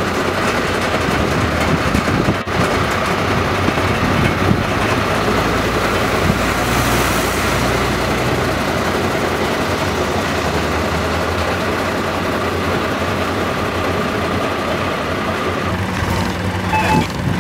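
Fire trucks' diesel engines idling steadily, heard close up.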